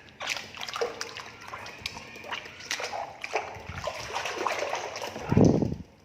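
Small irregular splashes and trickling water as a toy is handled in water, with a louder thump near the end.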